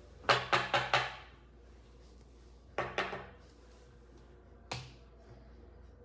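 A series of sharp, ringing knocks: four in quick succession, then two about two seconds later, then a single one near the end.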